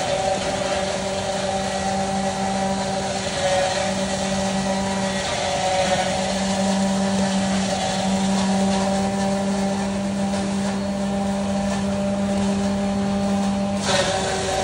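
A motor running steadily with a hum over a noisy rush; its deepest hum stops near the end, at a brief burst of noise.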